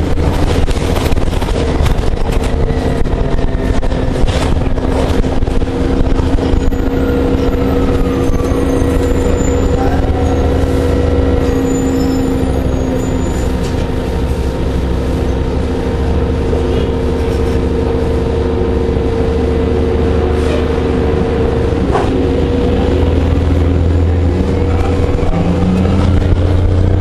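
Orion VII (07.501) low-floor hybrid transit bus running: a loud, steady drone with a constant low hum, and faint whines that rise and fall in pitch as the bus speeds up and slows, with a few short clicks and knocks.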